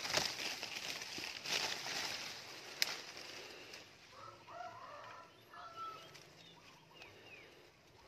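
Faint hiss of rustling or wind on the microphone for the first few seconds, with one sharp click, then distant chickens calling in short bursts from about four seconds in.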